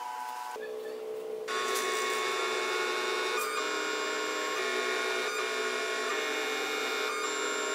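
Small DVD-drive stepper motors of a mini CNC plotter whining as they move the pen carriage and paper bed to draw a letter. The whine gets louder about a second and a half in and changes pitch a few times as the strokes change direction.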